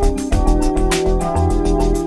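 Background music: electronic music with held synthesizer chords and a steady beat.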